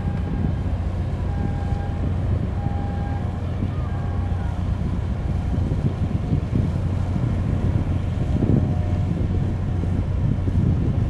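Steady low engine rumble of a boat on the water, with wind buffeting the microphone and the wash of water.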